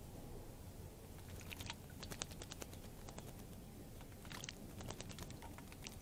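American robin bathing in a shallow bird bath, flicking its wings and splashing: two bouts of quick, sharp splashes, about a second and a half in and again about four and a half seconds in.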